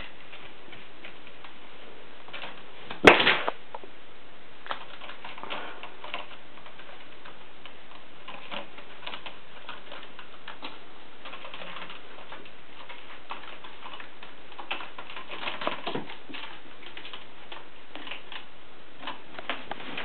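Kittens' claws scratching and tapping on a carpeted cat tree and its sisal posts as they climb and scuffle: scattered irregular clicks and rustles, with one sharp thump about three seconds in.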